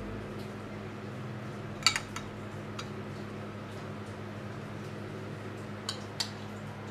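Metal spoon clinking against a ceramic soup bowl and plate: a quick double clink about two seconds in and two more near the end, over a steady low hum.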